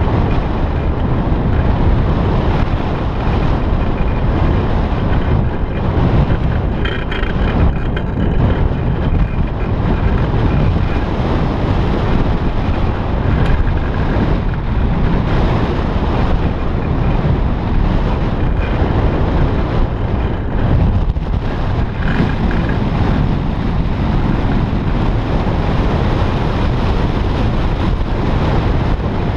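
Wind rushing over a GoPro's microphone on a hang glider in flight: a loud, steady, low rush of airflow noise.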